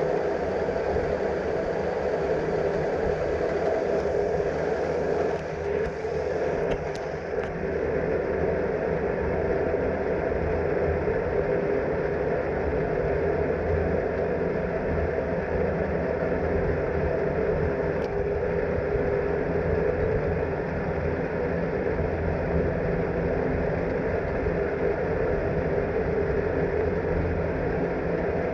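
Steady rumbling hum and hiss of a moving cable car, heard from on board, with a few faint ticks.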